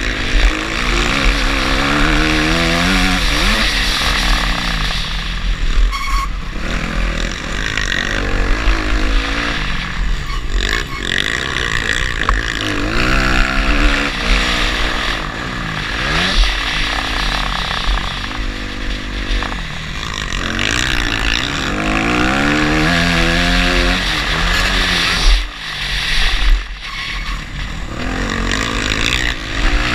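Dirt bike engine revving up and dropping back again and again as the rider accelerates, shifts and rolls off, with heavy wind buffeting on the bike-mounted microphone.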